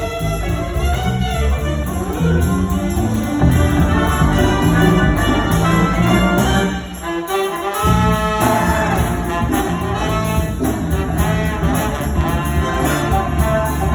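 High school jazz band playing a brass-led tune, with trumpets and trombones over bass and drums. About halfway through the bass drops out for a moment, then the full band comes back in.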